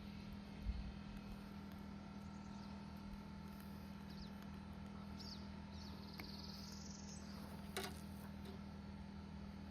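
Faint bird chirps over a steady low hum, with one sharp click about eight seconds in.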